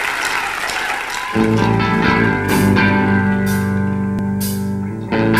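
Audience applause, then about a second in an electric guitar starts the opening chords of a live rock song, ringing and sustained, with a new chord struck near the end. A cymbal is tapped about once a second over the guitar.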